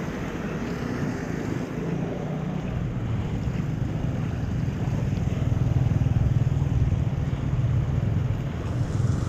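Floodwater rushing into an unclogged street drain, a steady low rush that grows louder about halfway through.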